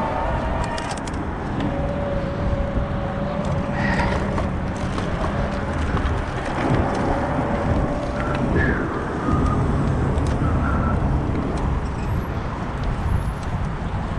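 Wind rushing over the microphone and tyre and road rumble while riding an eBike on a road with traffic. A steady whine holds for several seconds in the middle.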